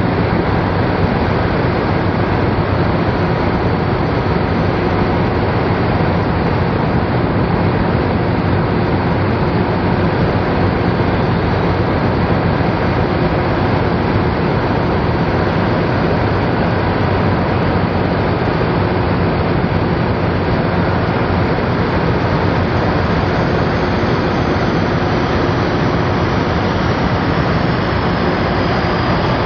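The Cummins N14 inline-six turbo diesel of a Peterbilt 377 truck running steadily at an even speed, with no revving.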